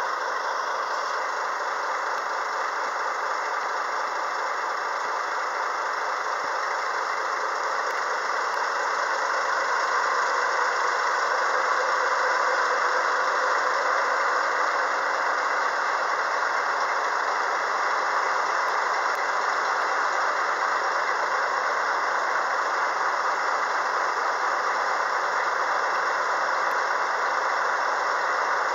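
JNR DD51 diesel-hydraulic locomotive idling at a standstill, its twin V12 diesel engines running with a steady whining hum and rattle. It grows a little louder about ten seconds in.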